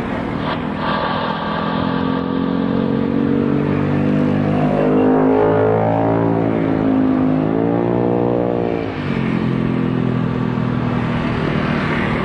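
Engine noise: a steady low drone, with the pitch rising twice in the middle and dropping back each time, like an engine revving up and shifting gear.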